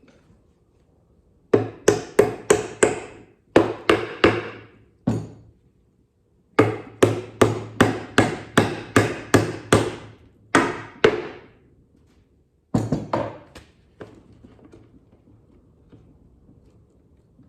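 Hammer striking nails into the wooden birdhouse in quick runs of blows, with short pauses between the runs; the longest run is more than a dozen fast strikes.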